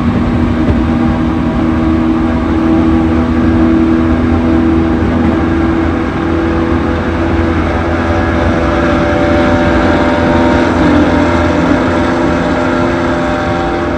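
Inside an E231-1000 series commuter train car running at speed: continuous rumble with a steady multi-tone hum layered over it, the abnormal noise this car makes. The pitches drift only slightly.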